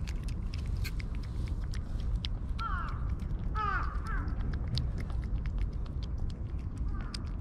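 Crows cawing, a few short calls falling in pitch, in two small runs. Scattered sharp clicks of cats chewing their food run underneath.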